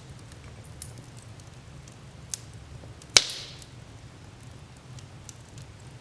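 Wood fire crackling in a fireplace: a low steady rumble of flames with scattered small ticks, a pop a little past two seconds in, and one loud sharp crack just after three seconds.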